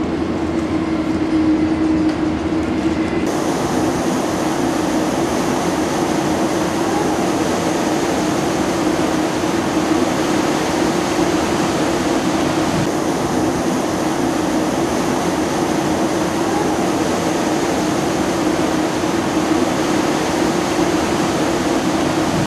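Steady running noise of a moving vehicle, with a low hum, its hiss growing brighter about three seconds in.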